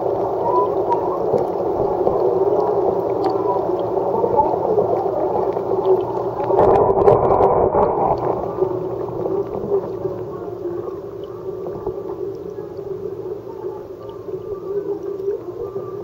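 Aquarium water moving: a steady bubbling and gurgling from the tank's filter or air supply, with wavering tones. It swells about halfway through, then eases off toward the end.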